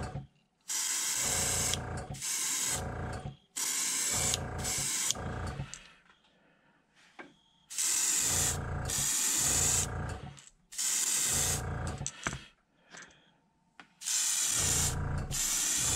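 Gravity-feed airbrush spraying neon orange paint at turned-down pressure, in about six short hissing spells of one to three seconds each, with brief pauses between.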